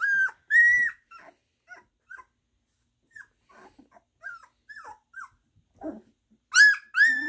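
Goldendoodle puppies about two and a half weeks old making high-pitched cries, the young pups just learning to use their voices. Two loud squealing cries come at the start and two more near the end, with short faint squeaks and whimpers in between.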